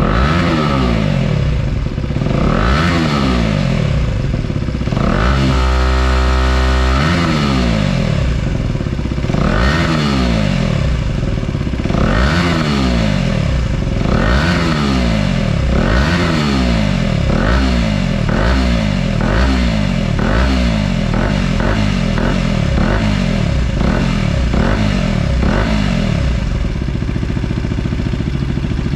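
KTM Duke 250's single-cylinder engine revved through an SC Project slip-on exhaust with repeated throttle blips that rise and fall in pitch. One rev is held high for about a second and a half around six seconds in, and in the second half the blips come quicker and shorter.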